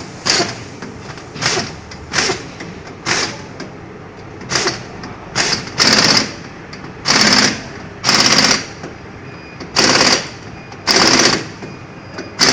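Impact wrench hammering on a wheel hub nut in about a dozen short bursts of rapid rattling blows. The bursts lengthen to about a second each in the second half.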